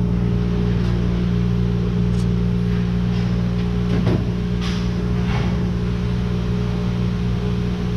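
A steady low mechanical hum, with a few faint light clicks partway through.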